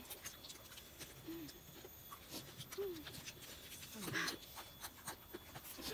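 Faint sounds of several people eating very spicy noodles: small clicks and smacks of chewing and slurping, a few short murmured vocal sounds and a breathy burst about four seconds in, as they react to the chilli heat.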